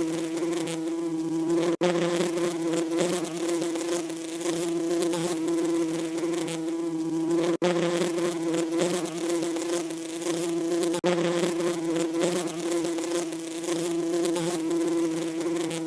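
Bees buzzing: a steady droning hum that cuts out for an instant three times.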